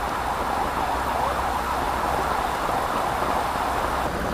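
Heavy rain pouring onto a flooded street, a dense steady hiss of drops splashing on standing water.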